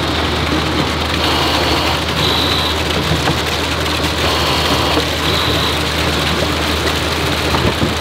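Wet concrete pouring off a ready-mix truck's chute into a wheelbarrow, a steady gritty rush without pauses, over the low steady hum of the truck's engine.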